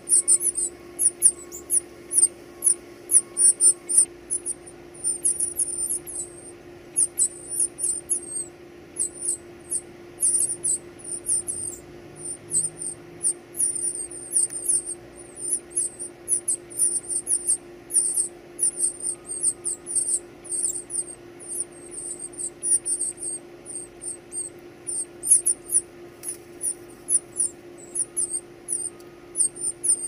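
Northern cardinal nestlings begging at the nest: a rapid series of thin, very high squeaky calls, several a second, as the parents feed them. A faint steady hum lies underneath.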